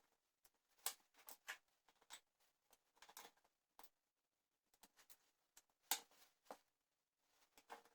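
Faint, irregular clicks and knocks of wooden puzzle-cube pieces being handled and fitted together.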